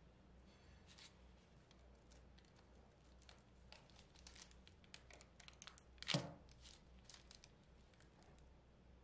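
Knife cutting through a slab of soft homemade caramel on parchment paper: faint scattered ticks and paper crinkles, with one louder, longer crinkle about six seconds in.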